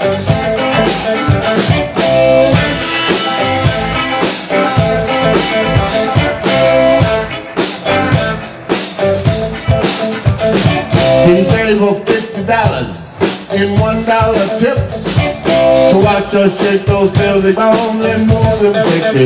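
Live blues band playing: electric guitars, electric bass and drum kit.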